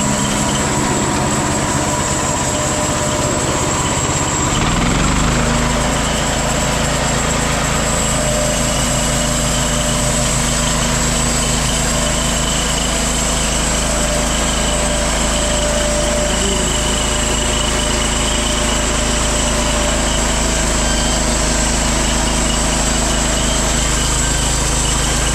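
Small petrol engine of a homemade band sawmill running steadily. About four seconds in, its pitch rises and then holds at the higher speed.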